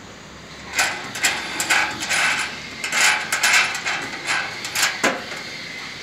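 Irregular metallic clinking, clattering and scraping of bolts and tools against a perforated metal panel as the stairs of a playground structure are bolted on by hand. It ends with one sharp clink about five seconds in.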